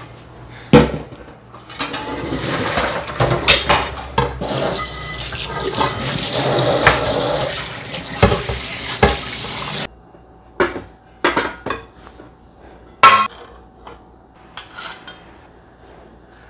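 Kitchen tap running into a stainless-steel sink while dishes and utensils clatter; the water is shut off abruptly about ten seconds in. After that come scattered clinks and knocks of kitchenware, with a sharp knock about a second in and another near 13 seconds.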